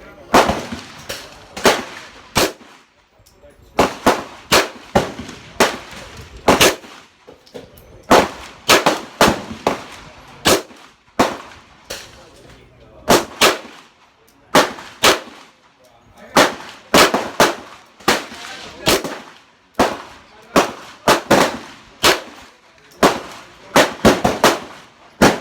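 Glock 17L 9mm pistol firing shot after shot in strings of about five or six, roughly two shots a second, with short pauses between strings. It is cycling cheap ammunition, which the shooter says it now runs more smoothly.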